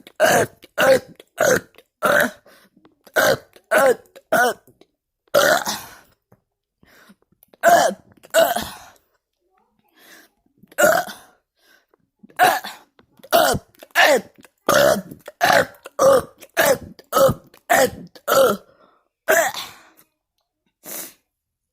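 A man burping over and over, about two dozen short, loud voiced burps in quick succession, with a brief pause a little before the middle.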